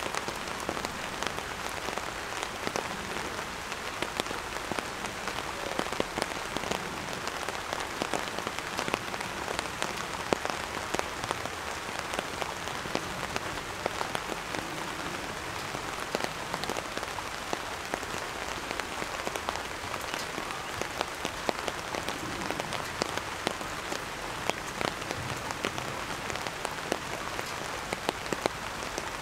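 Steady rain falling: an even hiss dotted with many sharp ticks of individual drops.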